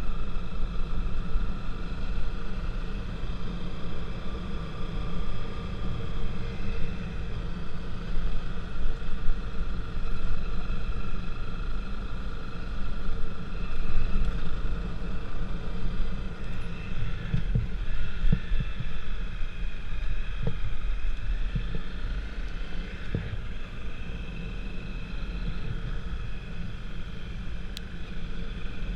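A vehicle travelling along a road, recorded on a camera riding with it. Wind rumbles heavily on the microphone, over a steady whine that drifts slowly up and down in pitch.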